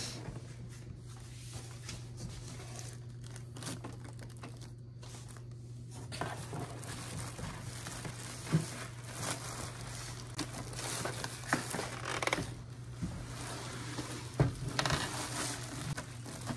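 Clear plastic packaging bag crinkling and cardboard box rustling as a boxed printer is pulled out and handled, with a few sharp knocks. A steady low hum runs underneath.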